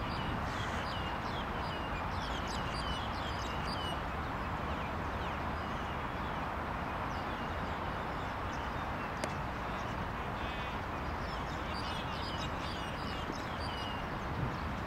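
Small birds chirping in quick clusters over a steady outdoor background hiss. A single sharp crack of a cricket bat hitting the ball comes about nine seconds in.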